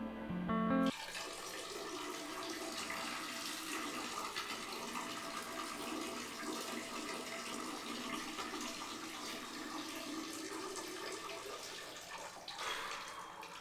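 Steady rushing water, an even hiss, after the tail of a piece of music in the first second.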